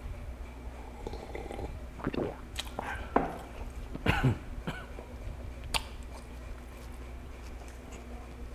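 Close, clip-on-miked sips and swallows of green tea from a glass mug. Then a short clunk as the glass mug is set down on a wooden board, and a brief cough or throat clearing.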